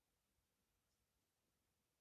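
Near silence: only a faint noise floor.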